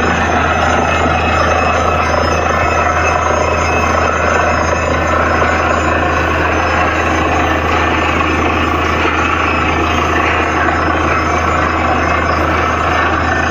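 Borewell drilling rig running steadily: a loud, constant machine noise with a deep hum underneath and no breaks.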